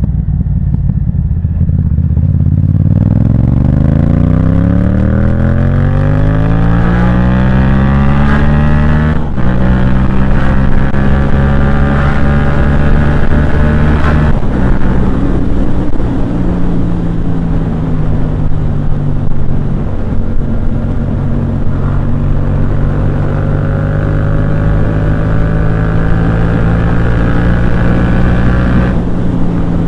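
Yamaha MT-07's parallel-twin engine through a Firetong aftermarket exhaust, revs climbing steadily for several seconds, dropping suddenly at a gear change about nine seconds in, then holding a fairly even engine speed with small rises and dips.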